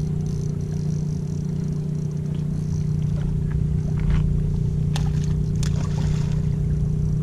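A boat engine running steadily with a low hum. About five seconds in come two sharp splashes as a hooked Indo-Pacific tarpon thrashes at the surface.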